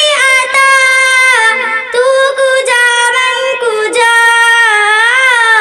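A young girl singing a naat into a microphone with no accompaniment, holding long, drawn-out notes that slide between pitches, with a wavering note near the end.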